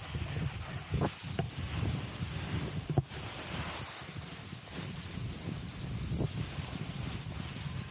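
Snowboard sliding and scraping over packed snow, with wind buffeting the microphone; a sharp knock about three seconds in.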